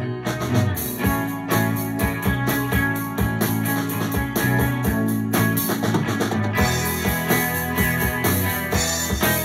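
Rock music: guitars joined by a drum kit, the cymbals and drums coming in just after the start and playing on steadily.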